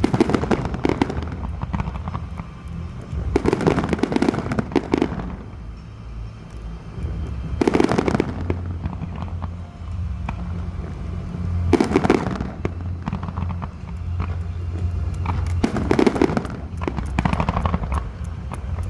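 Fireworks display: volleys of bursts and crackling, a fresh salvo every three to four seconds, over a steady low rumble.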